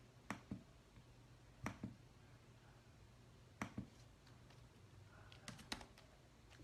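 Faint clicks at a computer, mostly in pairs a fraction of a second apart, coming every couple of seconds with a small cluster near the end, over a faint low hum.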